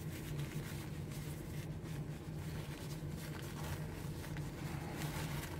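White paper tissue rustling and crinkling as it is unwrapped by hand, in irregular crackles over a steady low hum.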